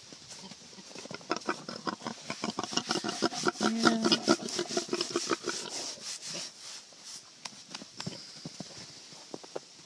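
Piglets grunting and scuffling, with many quick clicking steps, building about a second in and loudest in the middle, then dying down.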